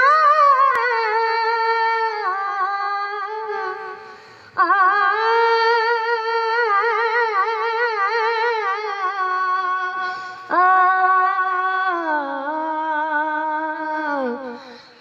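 A boy's high voice singing long held notes with a wavering vibrato, in three long phrases that each sink in pitch as they fade, the last sliding down near the end.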